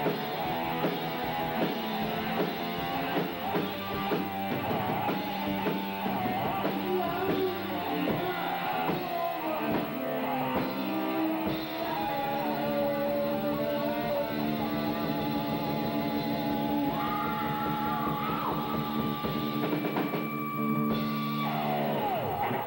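A live rock band plays: electric guitar, bass guitar and a drum kit, with the guitar playing bent, wavering lead notes over the band.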